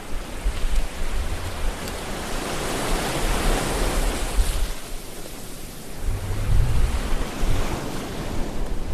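Sea water rushing and splashing along the hull of a one-man outrigger canoe, heard from a camera mounted at the waterline, with wind buffeting the microphone. The rush swells for a few seconds in the middle as spray washes over the camera.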